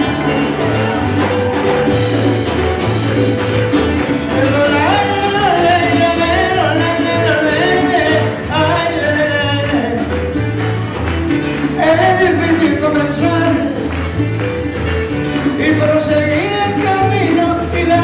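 Live Latin American band playing with drum kit, electric bass, acoustic guitars and keyboard, and a voice singing from about four seconds in.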